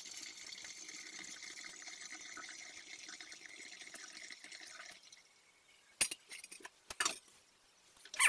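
Cooled malt-extract wort pouring through a funnel into a glass flask, a steady trickle that stops about five seconds in. A few sharp clinks and knocks follow.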